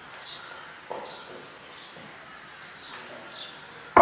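A small bird chirping repeatedly in the background: short high chirps that fall in pitch, about two a second, over a faint hiss.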